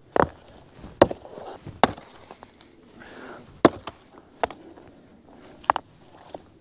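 Fire-ring stones knocking together as they are set in place by hand: about six sharp clacks, irregularly spaced.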